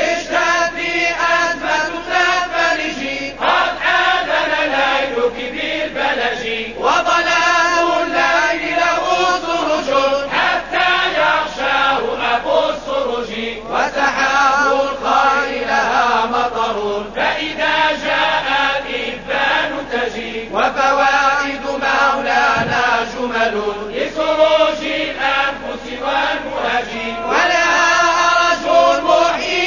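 Background music of chanted Arabic devotional singing (inshad): a voice sings long, wavering melodic lines.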